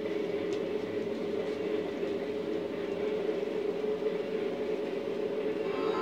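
Steady rumble and hum of trains running on an N-scale model railroad layout, with an even mid-pitched drone and no distinct clicks or changes.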